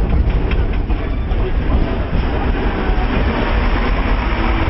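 Passenger train riding along the track: a steady rumble of the cars and wheels on the rails, with a few faint clicks in the first second.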